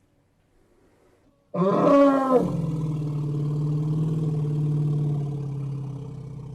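Elephant call: about a second and a half in, a loud roar with a bending pitch, running straight into a long, steady low rumble that slowly fades near the end.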